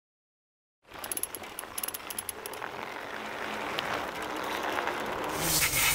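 After a second of silence, mountain bike rear hubs tick in a quick run of clicks as the wheels freewheel. This gives way to a steady background hubbub that grows slightly louder.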